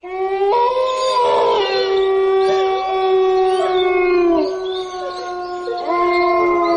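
Dogs howling: several long, steady howls overlapping, one fading out past the middle and another starting up near the end.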